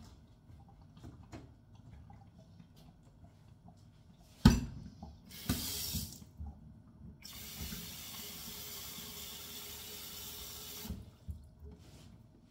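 Kitchen tap running into a steel pot of broccoli and cauliflower florets in a stainless steel sink, filling it with water. A loud knock comes first, then a short spurt of water, then a steady run of about four seconds that cuts off suddenly, followed by small clunks.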